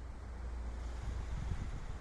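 Sea water washing and lapping, with wind buffeting the microphone in a low, steady rumble.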